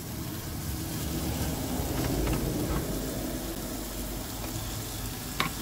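Steak, mushrooms and onions sizzling in a frying pan on a portable gas stove, with a few light utensil clicks against the pan. Under it, the low rumble of a passing road vehicle swells to its loudest about two seconds in and then fades.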